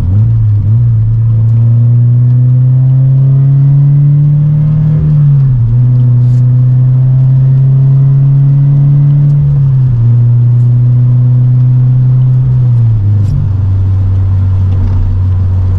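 2014 Subaru BRZ's flat-four engine and exhaust droning steadily, heard from inside the cabin while driving. The pitch creeps up and drops back three times: about five seconds in, near ten seconds, and about thirteen seconds in.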